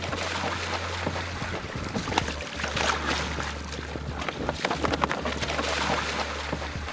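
Water splashing and churning as swamp buffalo plunge off a pen ramp into the swamp and swim, a dense, irregular run of splashes over a steady low hum.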